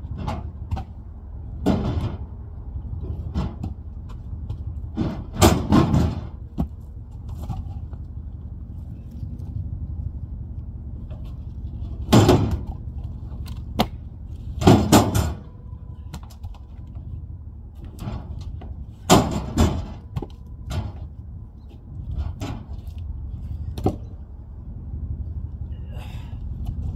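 Heavy cut log rounds of firewood knocking and thudding as they are dropped and rolled off a trailer onto gravel and a pile of other rounds, about a dozen irregular impacts, some in quick pairs. A steady low rumble runs underneath.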